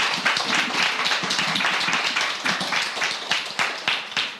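Audience applauding, a dense patter of clapping that gradually thins out toward the end.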